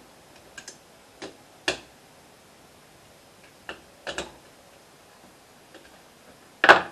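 Irregular metallic clicks and taps of an Allen key working cap head screws in a lathe chuck body, a handful in all, the loudest one near the end.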